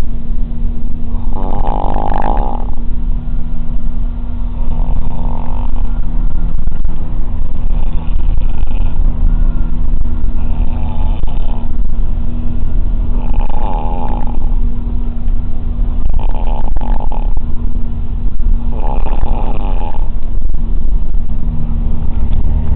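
A person snoring, one snore about every three seconds, over the steady drone of a bus's engine.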